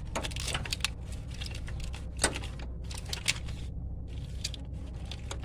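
Small clicks and scrapes of a screwdriver prying a dry-dirt-caked plastic electrical connector off a car alternator, with a sharper click about two seconds in and another about a second later.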